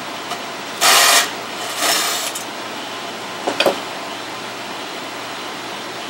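APC Smart-UPS 1400 being taken apart to get at the battery: two short scrapes in the first two seconds, then a few quick knocks and clicks about three and a half seconds in, over a steady hum.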